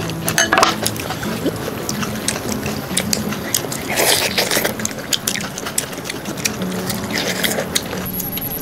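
A low background melody with scattered sharp clinks of dishes and utensils and some liquid sounds, louder about four seconds in.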